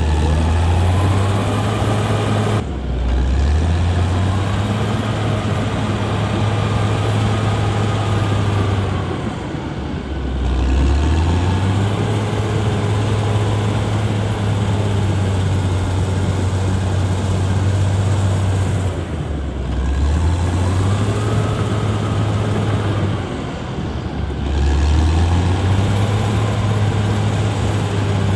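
Caterpillar D6R XL bulldozer's diesel engine working hard. Its pitch drops and climbs back up four times, then holds steady between the dips, over a steady noisy rumble.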